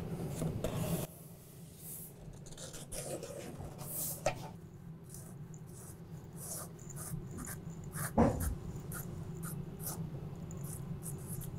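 Permanent marker drawing lines on a cardboard template: a string of short marker strokes, with one louder stroke about eight seconds in.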